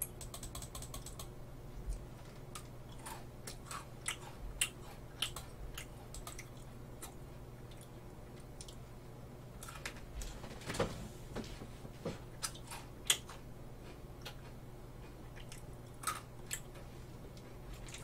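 Quiet, irregular crisp clicks and crunches of chocolate-coated cookie sticks (Lotte White Cookie Pepero) being bitten and chewed close to the microphone, over a low steady hum.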